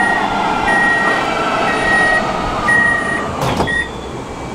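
Metro train door-closing warning: a high beep repeating about once a second, four times. About three and a half seconds in, the doors shut with a single knock, a last short beep is cut off, and the background noise drops.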